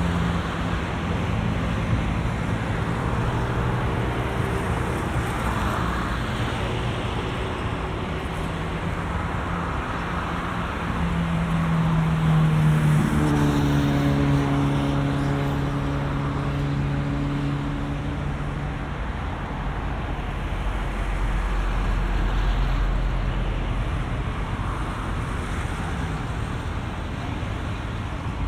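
Traffic on a multi-lane city avenue: a steady stream of cars passing. About halfway through, one vehicle's engine hum grows loudest and drops in pitch as it goes by.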